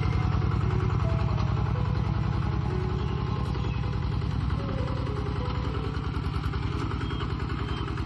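Kubota RT-120 Plus walking tractor's single-cylinder diesel engine running steadily under load as it pulls a disc plough, with a fast, even firing pulse. It grows slightly fainter as the tractor moves away.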